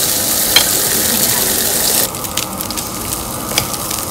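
Eel fillets sizzling on a hot tabletop grill plate, with a sharp click of metal tongs about half a second in. About two seconds in the sizzle abruptly turns quieter, with scattered crackling pops.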